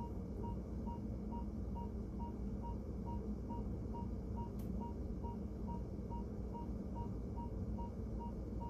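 Hospital monitor beeping steadily, a short electronic tone a little more than twice a second, over a low steady room hum. One faint click about halfway through.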